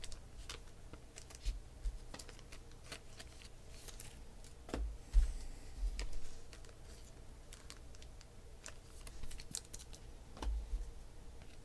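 Trading cards and pack packaging being handled on a tabletop: scattered light clicks and taps, with a couple of louder knocks about five seconds in and near the end.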